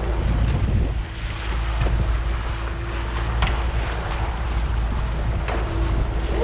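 Boat's outboard motor running steadily under way, with wind buffeting the microphone and the wake's water rushing; a steady hum sits over it, and two short sharp clicks or knocks stand out partway through.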